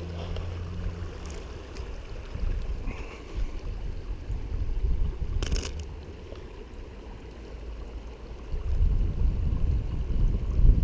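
Wind rumbling on an action camera's microphone, stronger near the end, with one sharp click about five and a half seconds in.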